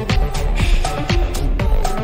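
Electronic house dance music with a steady four-on-the-floor kick drum at about two beats a second, hi-hats and held synth notes.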